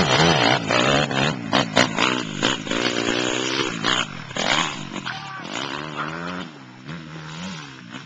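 Dirt bike engine revving hard as it pulls away carrying two riders, its pitch rising and falling again and again as it goes through the gears, growing fainter as it climbs away up the hill.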